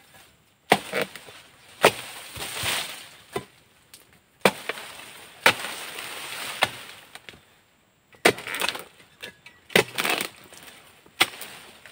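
Oil-palm dodos, a steel chisel on a long pole, chopping into the thick frond bases of an oil palm: repeated sharp chops roughly once a second with rustling in between, and a short pause about two-thirds of the way through.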